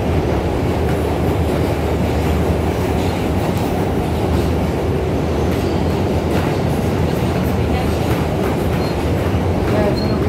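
Inside an R160 New York subway car running between stations: a steady, loud rumble of the train in motion, with a few faint clicks from the wheels on the track.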